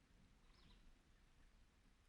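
Near silence: faint outdoor ambience, with one faint high chirp about half a second in.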